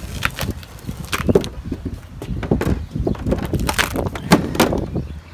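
A flexible solar panel being peeled off an aluminium roof by hand, giving irregular crackling and tearing as the VHB tape and sealant let go and the thin panel bends. Several louder cracks stand out among the crackle.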